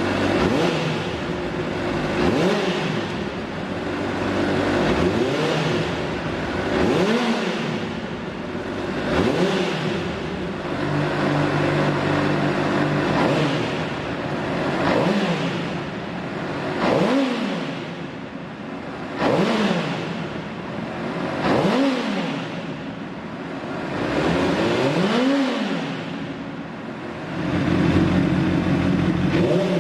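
Honda CBR600RR inline-four sportbike engine revved again and again from idle through an aftermarket or stock exhaust. Each blip climbs in pitch and drops back to a steady idle, about every two to three seconds.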